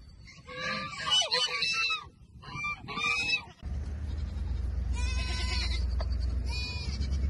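Goats bleating, several calls one after another. About three and a half seconds in, the sound changes abruptly to a steady low rumble, with two more bleats over it.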